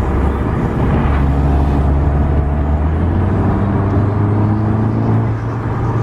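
Volkswagen Golf R estate's turbocharged four-cylinder engine heard from inside the cabin, its low note climbing steadily as the car accelerates, then dropping near the end.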